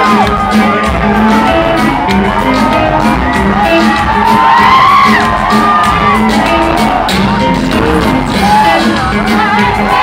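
Live band playing loud pop dance music through a club sound system, with a steady beat, and crowd voices shouting and whooping over it.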